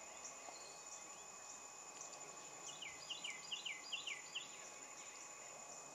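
Faint swamp insect chorus: a steady high-pitched drone with a fainter steady lower tone. About three seconds in, a small bird gives a quick run of about seven short, falling chirps.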